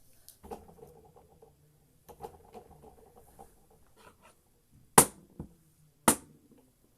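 Mini foosball table in play: a ball rolls and rattles across the plastic table twice, then two sharp knocks land about a second apart as the ball is struck or hits the table's sides.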